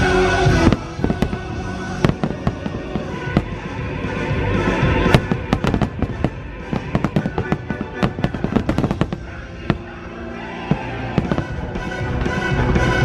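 Fireworks bursting and crackling, with a rapid cluster of pops in the middle, over loud show music.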